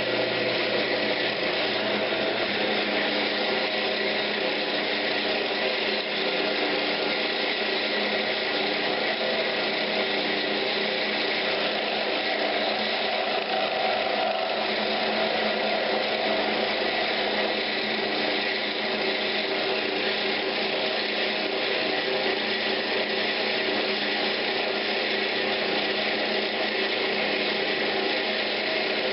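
Wood lathe running steadily, with a turning tool taking light cuts on a spinning pine cabinet knob.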